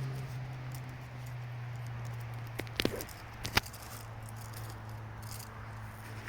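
A few light clicks and a short rattle from the tarp's ratchet guy-line hardware being handled, about three seconds in, over a steady low hum.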